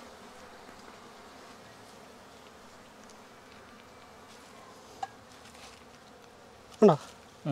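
Honey bees buzzing steadily around an opened hive, with a single click about five seconds in and a short vocal exclamation near the end.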